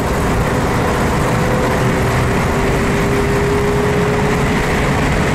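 1949 Cadillac Series 62 convertible with its 331 cubic-inch V8 cruising at highway speed, heard from inside the car: steady engine, road and wind noise with an even hum running through it.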